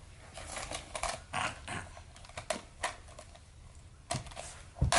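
Hard plastic dinosaur toy figures being handled, giving irregular clicks and clacks, with a louder knock near the end.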